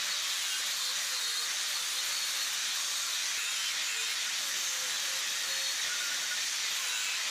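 Electric angle grinder with a thin disc cutting into a steel box-section frame rail: a steady hiss of the wheel on the metal, with the motor's whine wavering a little as it takes the load.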